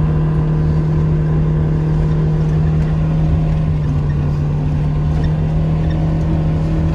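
Vehicle engine running at a steady speed, a constant low drone with no change in pitch.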